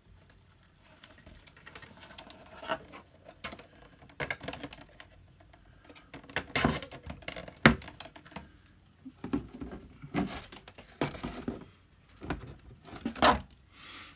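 Irregular small plastic clicks and rustling as nylon cable ties are threaded through the holes of an RC car's plastic body shell and pulled tight, with several sharper ticks from the second half on.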